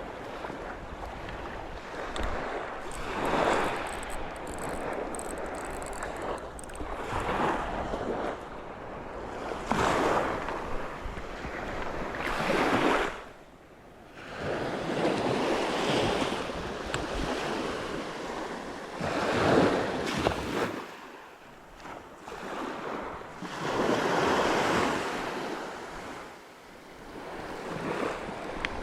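Sea waves washing in and drawing back, each surge swelling and fading every three to four seconds.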